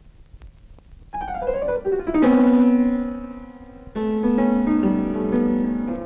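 Piano music: a quick descending run of notes about a second in lands on a loud held low note that slowly fades, then a new chord enters near four seconds in and rings on.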